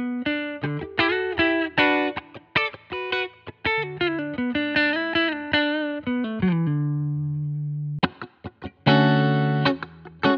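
Donner Hush-X headless electric guitar played with a clean tone in passive pickup mode: a picked single-note melody that ends on a held low note. About eight seconds in, a few short muted strums give way to ringing full chords.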